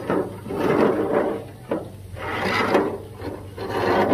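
A metal spatula scraping on a Blackstone griddle's steel top and a disposable aluminium foil pan rattling and crinkling as it is lifted off. The sound comes in three rough scraping swells.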